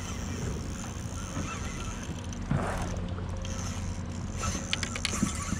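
Water lapping against a kayak hull, with wind rumbling on the microphone. There is a louder whoosh of water about two and a half seconds in and a few light clicks near the end.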